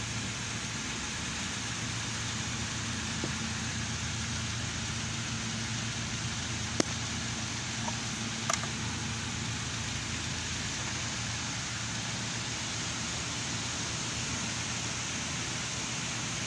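Steady mechanical hum and hiss, with two sharp clicks near the middle.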